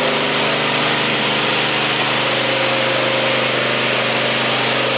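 A machine running steadily: a constant low drone with an even hiss over it.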